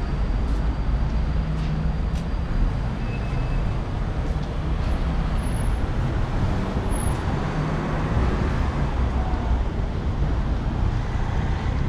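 Steady rumble of road traffic, with vehicles passing along the street.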